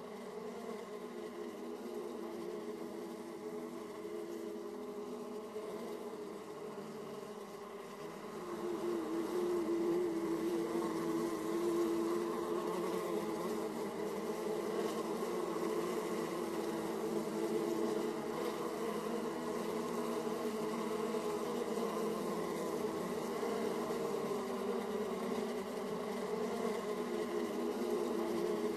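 Honeybees buzzing at the hive entrances: a dense, steady hum of many bees. It grows louder about eight seconds in.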